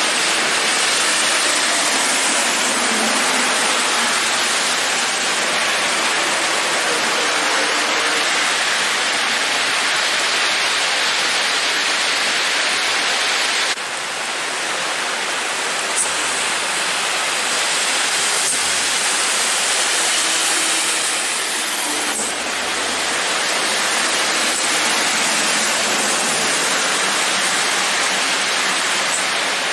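Heavy tropical downpour, a dense steady hiss of rain hitting the road and vegetation. Under it, truck engines and tyres on the wet road are faintly heard as trucks pass.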